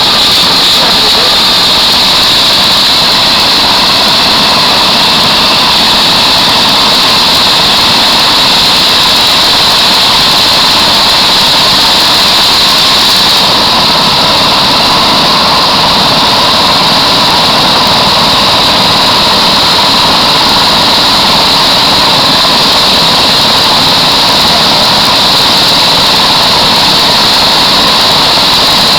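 Helicopter turbine engine and rotor running steadily and loudly, with a high steady whine over the noise of the rotor.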